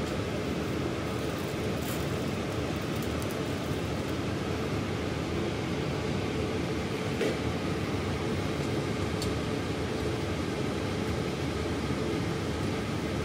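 Biosafety cabinet blower running: a steady fan noise with a faint hum, and a few faint clicks.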